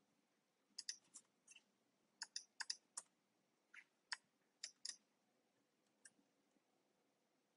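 Faint, irregular keystrokes on a computer keyboard: about a dozen sharp clicks in the first five seconds, with a last one near six seconds.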